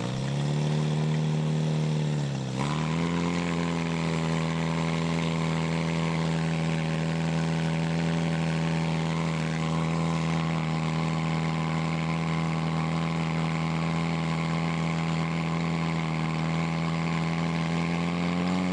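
Portable fire pump's engine running at high revs while it pumps water out to the attack hoses. The pitch rises as it opens up, dips briefly about two and a half seconds in, then holds steady, climbing slightly near the end.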